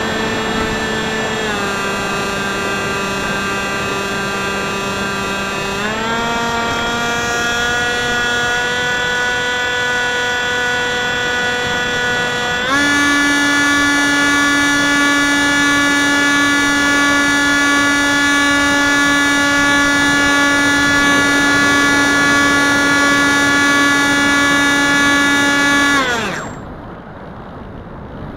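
Electric motor and propeller of a Wing Wing Z-84 flying wing (an uprated FunFighter motor), heard from the onboard camera: a steady whine that drops in pitch about a second and a half in, then rises in two throttle steps, at about six seconds and again near thirteen seconds. Near the end the motor winds down and stops, leaving wind rushing over the microphone as the plane glides.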